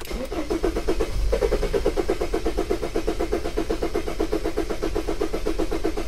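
Sprinter common-rail diesel engine being cranked by its starter motor in a steady, even rhythm without firing, because the camshaft position sensor is unplugged to disable starting.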